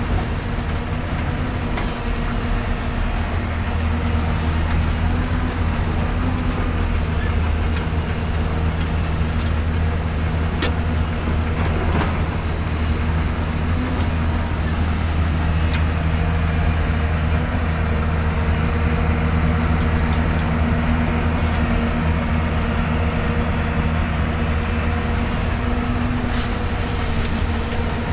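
Diesel engine of a Hyundai Robex 220-9S hydraulic excavator running steadily at working speed, with a few light knocks in the middle.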